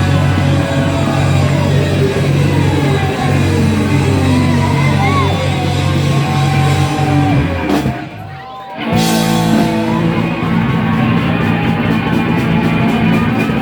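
A live rock band playing loudly, with electric guitar bends and slides over a steady bass and drum pattern. The sound drops away for about a second just past the middle, then comes back in full.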